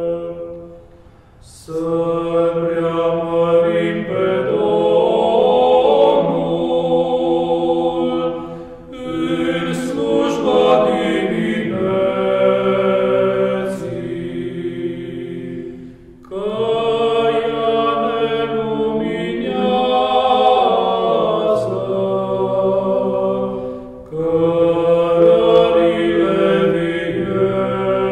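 Background music: unaccompanied choral chant of the Orthodox church kind, voices singing in long held phrases with a short break between each.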